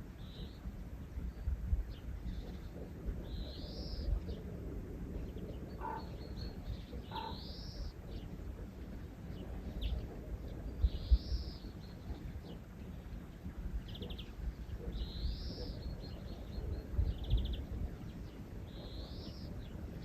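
Outdoor winter morning ambience: a bird repeats a short arched chirp every few seconds, with a few quick rattling trills in between, over a low rumbling background.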